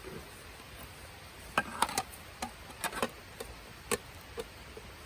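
A series of sharp clicks and light knocks at uneven intervals, clustered from about a second and a half in.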